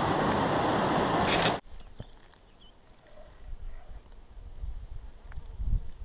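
Steady loud rushing noise that cuts off abruptly about a second and a half in, giving way to quiet outdoor ambience. In the quiet part there is a faint high insect-like hum and low thumps that get louder near the end.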